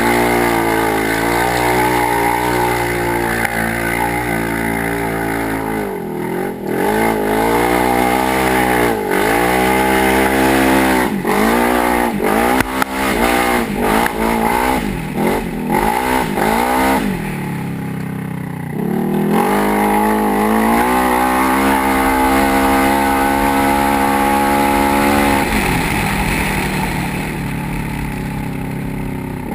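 2012 Polaris RZR 900 XP's twin-cylinder engine running hard, its pitch dipping and climbing again and again as the throttle is lifted and reapplied. A little past halfway the revs fall low for a couple of seconds, then it pulls back up and holds steady.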